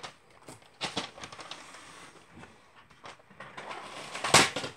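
Hands working a roll of ATG tape along a wooden picture frame and setting it down on the table: soft scattered rustles and clicks, with a louder clatter of handling about four seconds in.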